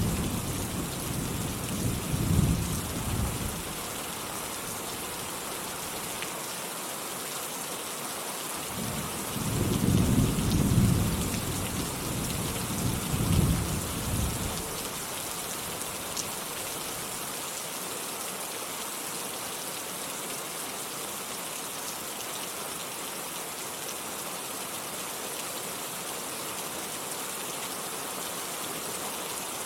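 Steady rain falling, with two rolls of thunder rumbling low under it. The first roll fades out within the first few seconds; the second swells and dies away about a third of the way through, after which only the rain continues.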